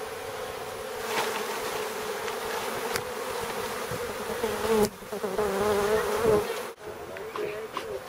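A large wild honeybee colony buzzing in a dense, steady hum as the bees are brushed off their comb. The hum cuts off sharply about two-thirds of the way through.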